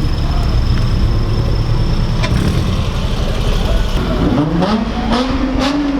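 Car engine running steadily, then revving up about four seconds in, its pitch rising and levelling off near the end.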